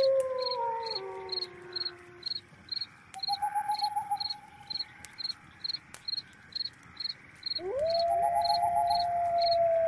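A cricket chirping steadily at about three chirps a second. Over it come louder long wails that hold one pitch and then slide down: one fading out about a second in, a short wavering one around three seconds in, and another rising in near the end.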